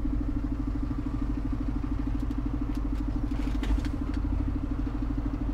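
Iveco Eurocargo lorry's diesel engine idling steadily at a standstill, with an even, rapid pulse. A few faint clicks come around the middle.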